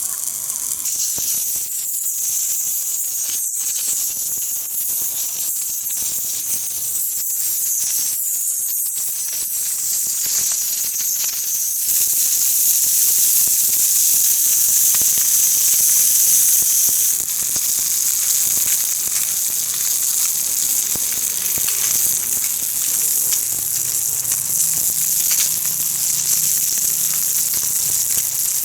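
Salmon belly sizzling in its own rendered fat in a frying pan, shallow-frying: a dense, steady high hiss with faint crackles, growing louder for a few seconds near the middle.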